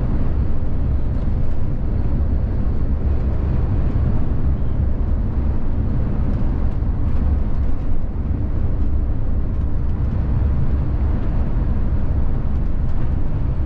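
Steady low road and engine noise of a VDL Futura coach cruising on the motorway, heard from the driver's seat inside the cabin.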